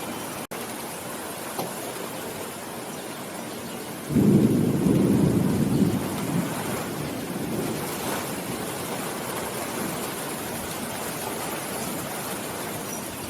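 Steady rainfall with a rumble of thunder that starts suddenly about four seconds in, is loudest for about two seconds, then fades away. The rain cuts out for a split second near the start.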